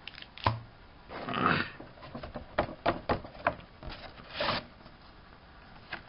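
Hands handling a jumbo trading card and its box packaging: a knock about half a second in, two short rustles, and a run of light clicks and taps in the middle.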